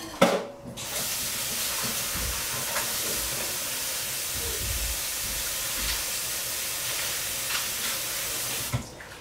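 Kitchen tap running in a steady stream, turned on about a second in and shut off abruptly near the end, just after a sharp knock.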